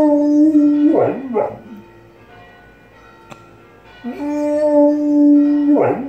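Dog howling twice, each howl a long held note that ends in a quick wavering break, in tune with church bells that ring faintly underneath and between the howls.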